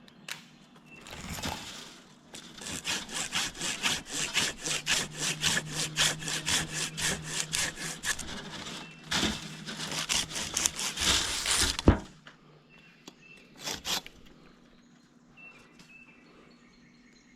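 A hand saw cuts through a tree limb in quick, even back-and-forth strokes, about three a second, for some ten seconds. It ends in one sharp, loud crack.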